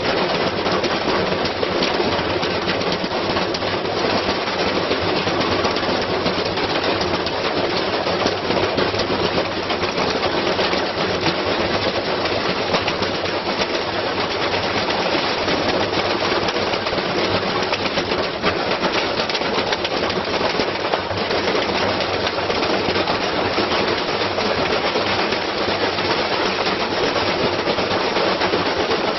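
Washing machine running with something heavy loaded inside, clattering and rattling in a rapid, continuous stream over a steady low motor hum.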